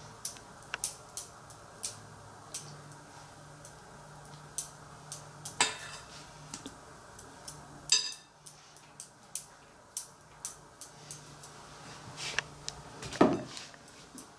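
A spreading knife clicking and scraping against a chocolate sponge sheet and its tea towel while whipped cream is smoothed over it: scattered light clicks and taps, with a few louder knocks, the loudest near the end.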